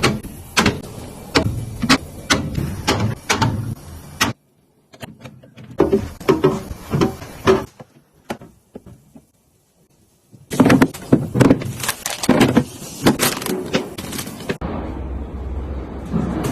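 Drink cans and bottles being handled and loaded into a beverage fridge: repeated knocks and clinks in several short stretches that start and stop abruptly.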